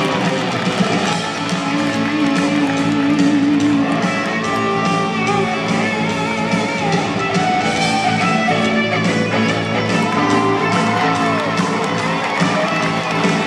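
Live rock music played by a band on stage, with an electric guitar to the fore over a full, continuous backing.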